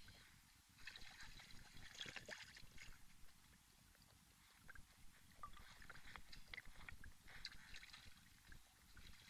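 Campfire crackling faintly, in two spells of quick irregular pops and snaps.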